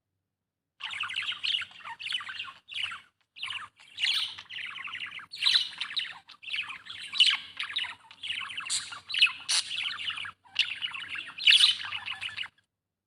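Budgerigar chattering: a fast, varied warble of chirps and squawky notes with brief pauses. It starts about a second in and cuts off suddenly near the end.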